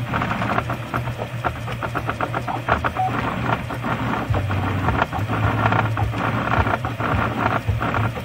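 RepRap 3D printer running a print, its stepper motors, including the extruder's metal gearhead stepper, humming in low tones that shift as the moves change, with quick ticking throughout.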